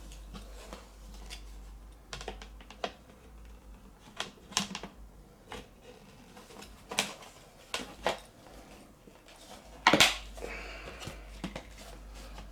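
Hard plastic toy-arena pieces clicking and clacking irregularly as they are handled and fitted together, with a louder clack about ten seconds in.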